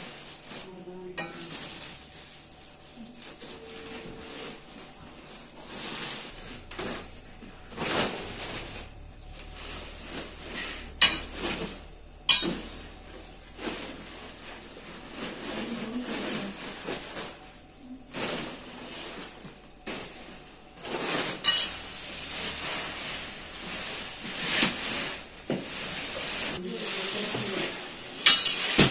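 Woven plastic sacks rustling and crinkling as they are shifted about with a metal snake hook, broken by scattered knocks and two sharp clicks near the middle.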